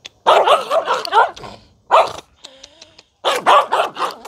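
Small long-haired terrier-type dog barking in three rapid, frantic bursts at a hand reaching toward it. It is defensive aggression: the dog attacks anyone who tries to approach or touch it.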